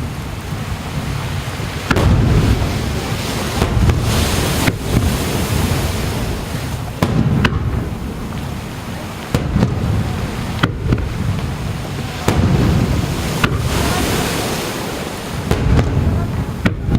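Aerial fireworks bursting over the sea, a deep boom every couple of seconds, each trailing off in a long rolling rumble, with thin sharp cracks in between.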